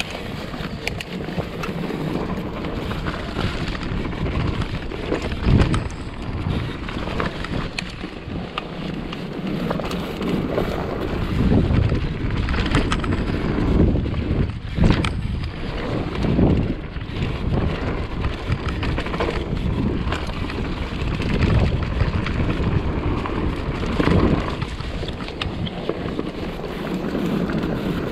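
Wind rushing over the microphone of a mountain bike descending a dirt trail, with tyre noise, uneven gusts and frequent knocks from the bike over rough ground.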